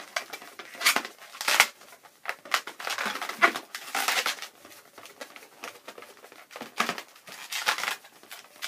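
A long black latex twisting balloon being twisted into small round bubbles: irregular squeaks and rubbing of latex against latex, several close together, quieter for a couple of seconds in the middle.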